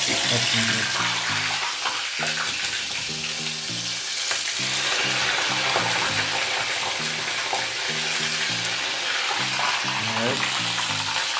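Chopped scallion, onion and pepper sizzling hard in hot vegetable oil, starting suddenly as they go in and then spitting steadily as they fry to flavour the oil. A music bass line plays underneath.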